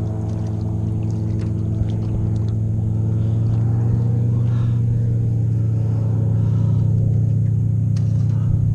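Airboat's engine and propeller droning steadily, growing a little louder about three seconds in.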